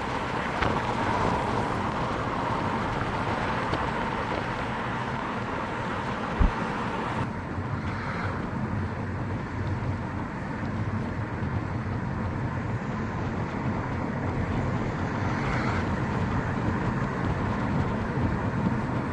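Steady road and engine noise of a car on the move, with a single low knock about six and a half seconds in.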